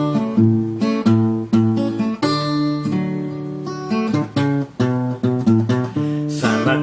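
Acoustic guitar strumming chords as an instrumental intro, with a sharp strum about every half second. A singing voice comes in near the end.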